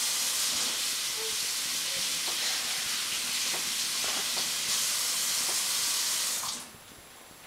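A loud, steady hiss, like rushing water or escaping steam, that cuts off suddenly about six and a half seconds in.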